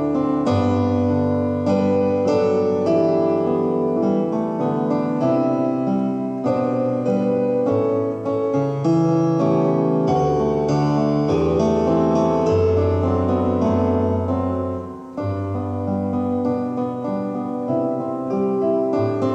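Solo keyboard music: chords over long held bass notes, with a brief dip in loudness about fifteen seconds in.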